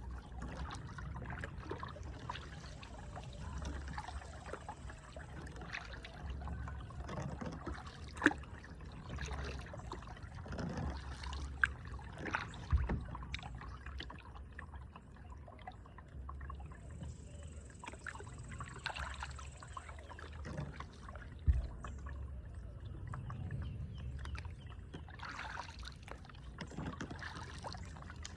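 Kayak paddling: paddle blades dipping and water trickling and dripping, an irregular splashy patter, with a few sharp knocks.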